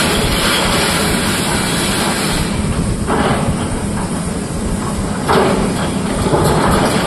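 Heavy excavator diesel engines running steadily, with the SANY excavator's steel bucket scraping and grinding through broken stone in short rough bursts about three seconds in and again just past five seconds.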